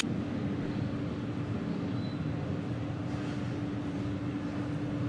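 Steady machine hum: one constant tone over a low rumble, with no changes.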